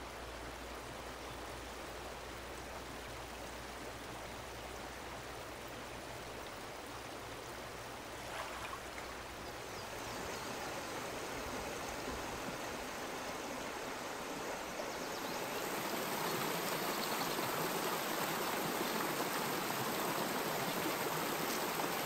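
Small mountain stream running over rocks, a steady rush of water that gets louder in two steps partway through.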